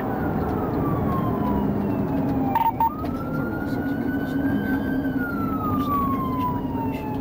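Police car siren on a slow wail, rising and falling in pitch over several seconds, briefly interrupted about two and a half seconds in. Underneath is a steady engine and road noise from the cruiser in pursuit.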